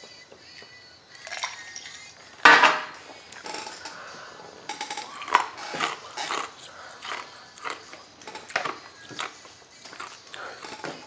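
Clatter and knocks of a drinking glass being handled and set down, with the loudest clatter about two and a half seconds in and smaller knocks after it.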